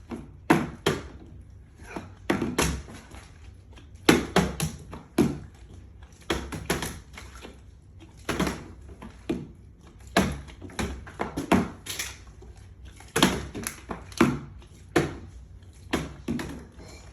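Plastic water bottles being flipped and landing on a hard surface: a long irregular run of sharp thuds and knocks, often two or three close together, one group every second or so.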